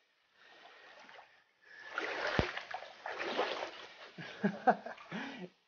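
Water splashing in a shallow canyon stream, with one dull thump a little over two seconds in.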